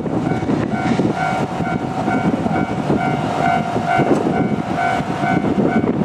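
Japanese level-crossing warning bell ringing its evenly repeated electronic ding-ding, signalling that a train is approaching the crossing.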